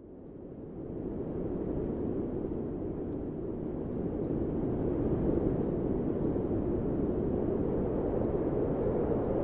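Train ambience: a steady low rumble that fades in from quiet over the first couple of seconds and then holds.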